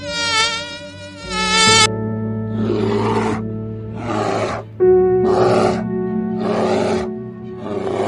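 Brown bears roaring in rough bursts about every second and a half, over background music with sustained chords. A fly-like buzz fills the first second and a half.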